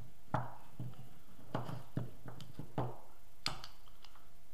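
Small microwave-oven magnet pieces clicking against each other and against the steel claw-pole half of a car alternator rotor as they are fitted by hand. There are about eight sharp, irregular clicks and taps.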